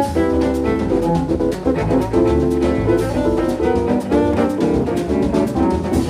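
Live band playing an instrumental jazz passage: bowed cello, piano and drum kit.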